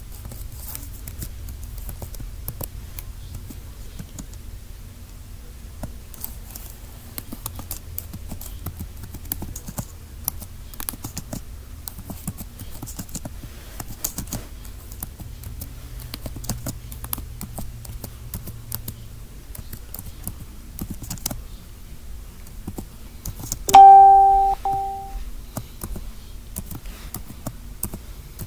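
Low steady room hum with small scattered clicks and knocks. About 24 s in, a single loud bell-like chime rings out and fades over about a second and a half.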